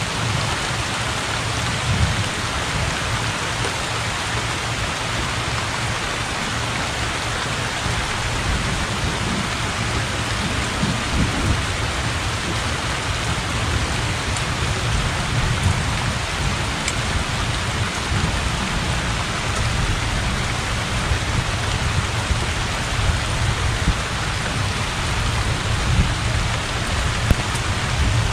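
Heavy rain falling steadily on flooded ground and standing water, with low rumbles of thunder underneath that grow stronger partway through.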